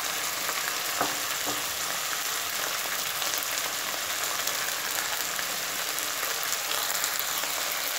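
Broccoli florets and fried onions sizzling in hot oil in a pan, a steady frying hiss, with two light clicks about a second in.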